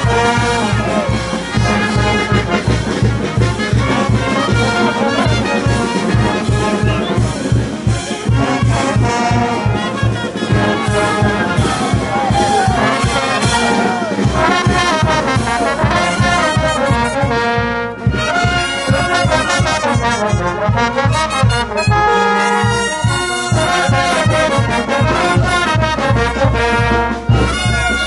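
Brass band playing a carnaval jaujino tune: trumpets and trombones carry the melody over a steady low beat.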